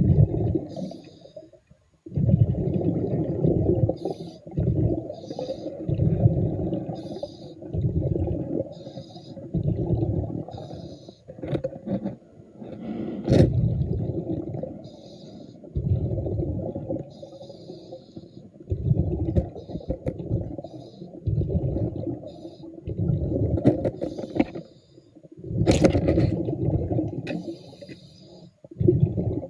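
Scuba diver breathing underwater: bursts of bubbling rumble from exhaled air every second or two. Two sharp clicks stand out, one about halfway through and one near the end.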